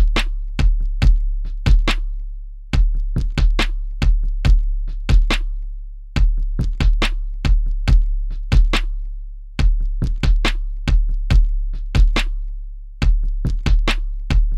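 Drum machine beat with a deep bass kick that booms and fades between hits, overlaid with sharp, snappy percussion hits in an uneven, syncopated pattern.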